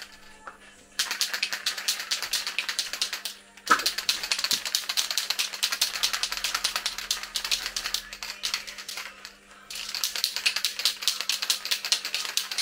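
Aerosol spray-paint can being shaken hard, its mixing ball rattling rapidly inside. The shaking comes in three long bouts with short breaks, and a single sharp click opens the second bout.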